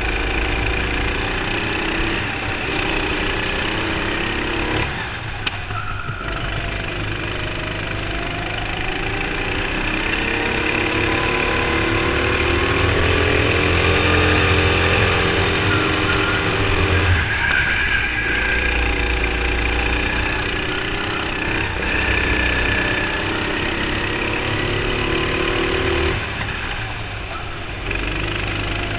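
Go-kart engine running under throttle, heard from the driver's seat, its pitch climbing along the straights and dropping briefly when the driver lifts off for corners, about five seconds in, past halfway and near the end.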